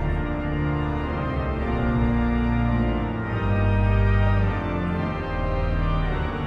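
Church organ playing slow, sustained chords over deep bass notes.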